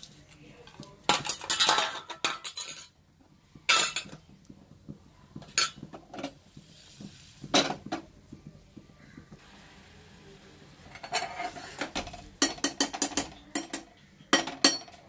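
Steel utensils clinking against a steel bowl and an aluminium pressure-cooker pan as lumps of jaggery are tipped into the pan and then stirred with a steel ladle. There are scattered separate clinks at first, then a quick run of clinks over the last few seconds.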